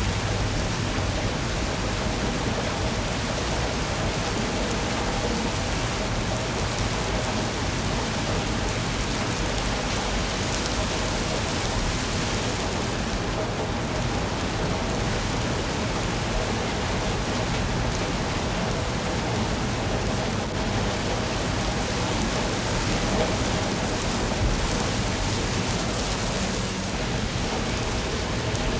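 Steady, even rainfall.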